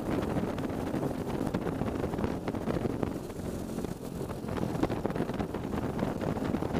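A racing kart's engine running at speed, heard from on board with heavy wind buffeting on the camera microphone. It eases slightly in the middle and then picks up again.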